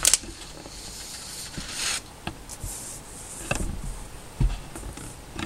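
A sheet of paper being slid and laid flat on a desk: soft rustling, with a few light taps and a low knock in the second half.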